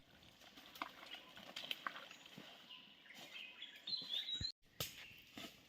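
Faint outdoor ambience with scattered light clicks and taps, and a short bird call about four seconds in. The audio drops out briefly just after the call.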